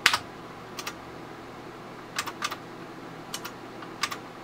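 Computer keyboard keys pressed one at a time: about eight separate clicks, some in quick pairs, spaced out over the few seconds.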